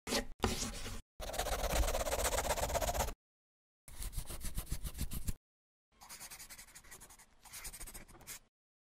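Scratchy scribbling sound effect, like a pen stroke, matching a line that draws itself across the screen. It comes in several bursts of rapid scratches broken by short silences, and is fainter in the last few seconds.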